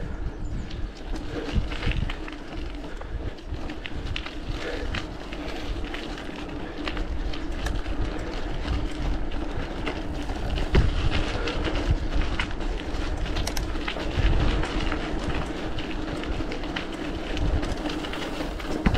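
Mountain bike being ridden: a steady hum from the rolling tyres, with wind rumbling on the microphone and scattered small clicks and rattles from the bike.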